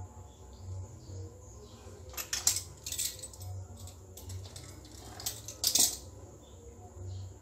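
Metal double-wheel pastry cutter clinking and clattering on a granite countertop in two short bursts, about two seconds in and again near six seconds.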